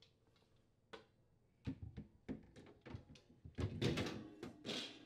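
Plastic-coated wire freezer shelf being fitted back into the plastic liner of a side-by-side refrigerator's freezer: a run of clicks, knocks and rattles, sparse at first and busiest and loudest about four seconds in, with a short scrape just after.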